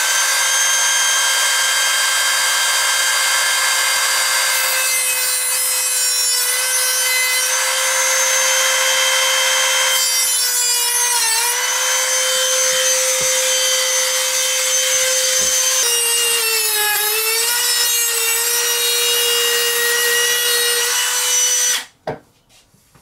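Mini rotary tool with a cutting disc running at high speed, cutting through the rails of OO gauge model railway track. Its steady high whine dips in pitch briefly about eleven seconds in and again around sixteen to eighteen seconds as the disc bites, then cuts off suddenly near the end.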